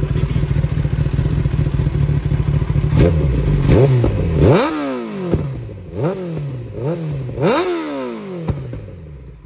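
Kawasaki ZX-10R's inline-four engine breathing through an SC Project long-can exhaust, idling steadily, then blipped about six times from about three seconds in, each rev climbing and falling straight back, before the note settles down near the end.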